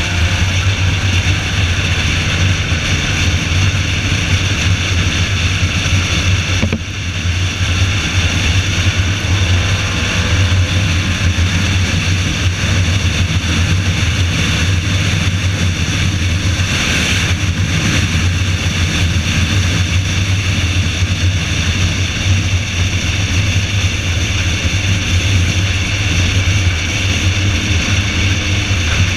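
Car running at speed on a wet race track: a steady low engine drone mixed with wind and road noise, dipping briefly about seven seconds in.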